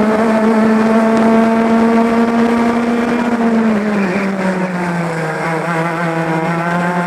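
Two-stroke racing kart engine at high revs, recorded on the driver's helmet. The note holds steady, then falls in pitch about four seconds in as the kart slows into a corner, and stays lower to the end.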